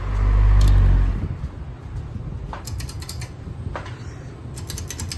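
Running ceiling fans being switched off: a series of sharp switch clicks, a quick cluster about two and a half to three seconds in, another single one shortly after, and a few more near the end, over the fans' steady low hum. A loud low rumble fills the first second.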